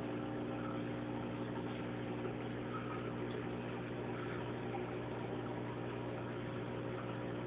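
Aquarium filter running with a steady low electrical hum and an even hiss.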